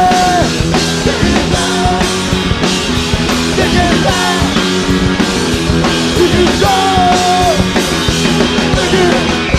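Funk-rock band playing live: electric guitar, bass guitar and drum kit in a steady groove, with a high lead line that holds notes and bends them in pitch.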